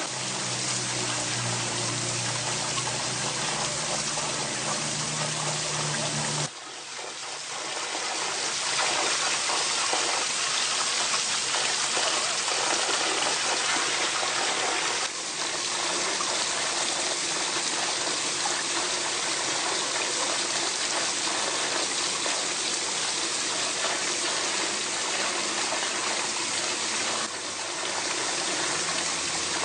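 Steady rushing of a forest stream, with a low hum under it for the first six seconds or so.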